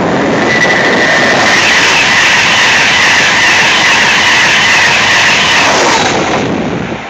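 East Coast express passenger train running through a station at speed: a loud rush of wheels on rail and air that swells as the coaches pass and dies away near the end.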